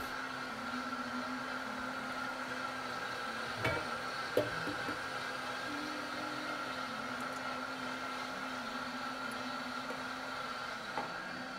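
Vitamix Ascent A3500 blender motor running steadily on high, its blades heating cold beans and broth into hot soup by friction. A couple of faint knocks about four seconds in and one near the end.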